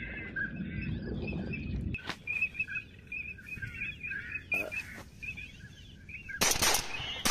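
Birds chirping: short, high calls repeated over and over, over a low rumble for the first two seconds. Near the end, shotgun shots go off in quick succession.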